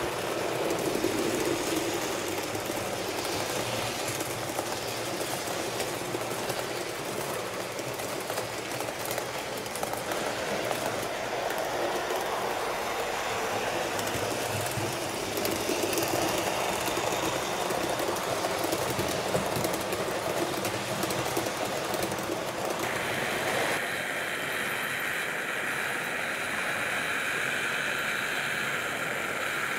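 HO scale model train running on its track, with a steady motor whir and wheel noise on the rails. About three-quarters of the way through the sound changes suddenly to a higher-pitched whine.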